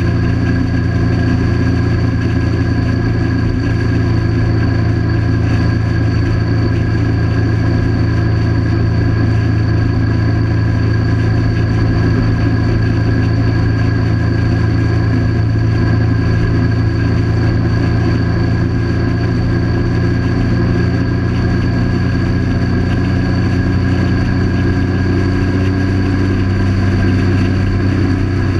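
A 1998 Triumph Sprint 900's three-cylinder engine running at a steady cruising speed, mixed with wind and road noise from riding.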